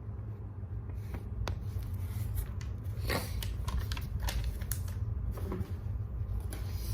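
Hands handling small objects and packaging: scattered light rustles and clicks, the longest about three seconds in, over a steady low hum.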